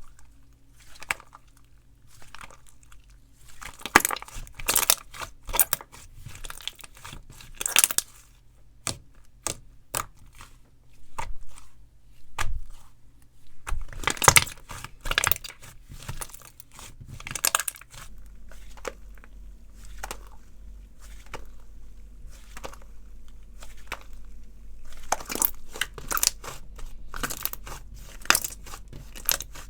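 Hands squishing, stretching and poking slime, giving irregular sticky crackles, clicks and pops in clusters.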